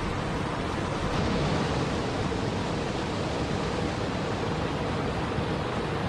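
River water rushing steadily, blended with soft white noise into one even, unbroken hiss.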